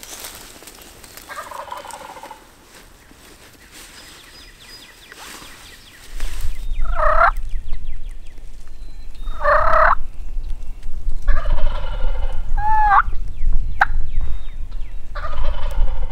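Wild turkeys gobbling from the roost, about six gobbles, the first one faint and the rest much louder from about seven seconds in. A low rumble runs under the later gobbles.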